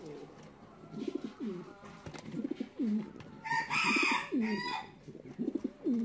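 Pigeons cooing: a run of low, rolling coos, one after another. About halfway through, a louder, higher call from another bird cuts in for about a second.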